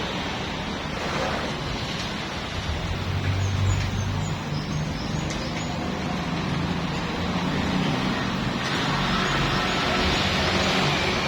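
A machine running steadily: a low hum with a hiss over it, a little louder near the end.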